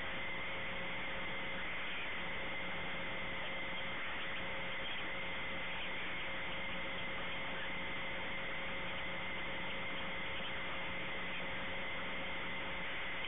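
Steady hiss and low hum on an open telephone line, with faint steady tones and no voices.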